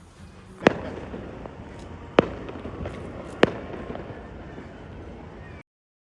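Three loud, sharp bangs about a second and a half apart, each trailing off in a rumble over steady background noise; the sound then cuts off abruptly near the end.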